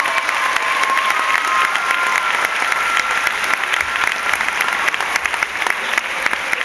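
Audience applauding, with a few cheering voices in the first seconds that die away, leaving the clapping.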